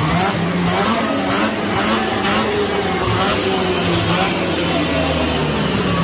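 Polaris 440 Pro X snowmobile's fan-cooled two-stroke twin running warm and being revved up and down with the throttle, the pitch rising and falling repeatedly. It is running good and strong after a carburettor cleaning cured its no-start.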